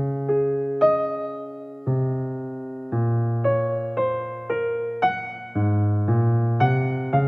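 Background piano music, most likely electric piano: chords and a melody struck about once or twice a second, each note fading after it sounds, over a low bass line.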